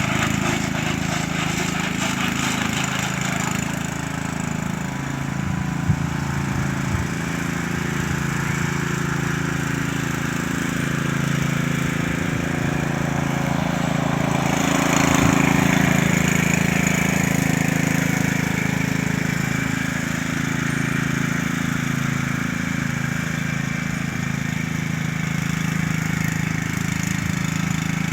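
Troy-Bilt lawn mower engine running steadily, swelling louder for a few seconds around the middle.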